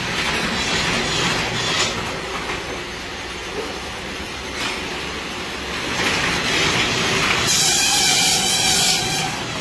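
Satay-skewer making machine running with a dense mechanical clatter. Near the end, a louder hiss with a steady whine rises over it for about a second and a half, then drops away.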